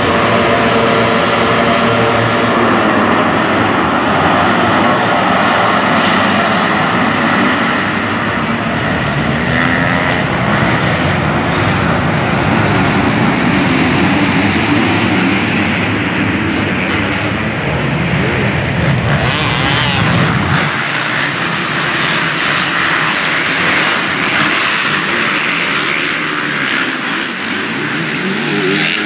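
Several motocross bikes racing on a dirt track, their engines revving and droning together without a break.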